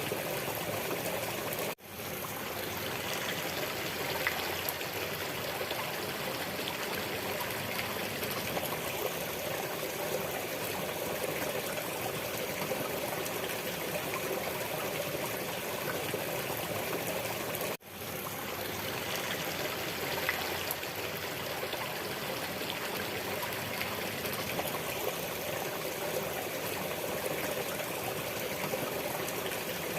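Running water of a stream, trickling steadily. It cuts out for a split second twice, about sixteen seconds apart.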